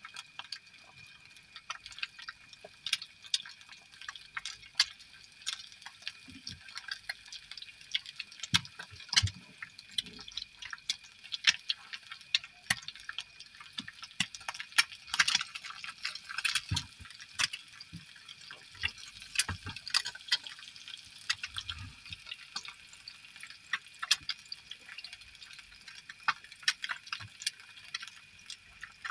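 Egg frying in a little oil in a nonstick pan on a portable gas stove: a steady sizzle with irregular spitting pops and crackles.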